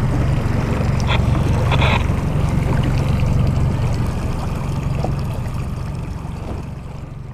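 Small outboard motor running steadily at trolling speed, a constant low hum. It fades out near the end.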